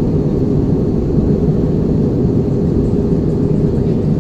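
Steady low rumble of an Airbus A320 in flight heard inside the passenger cabin: engine and airflow noise, even in level throughout.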